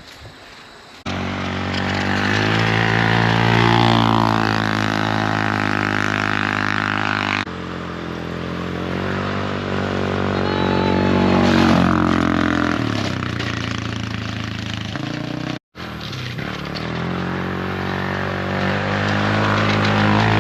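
ATV engine running at speed, its pitch rising and falling with the throttle. It starts abruptly about a second in and is broken by two sharp cuts.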